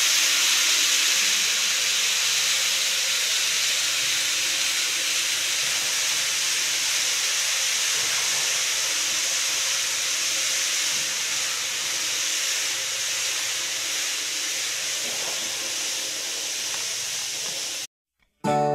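N-scale model electric train running on plastic viaduct track: a steady whirring hiss that slowly eases as the train moves away. It cuts off abruptly near the end, and music starts just after.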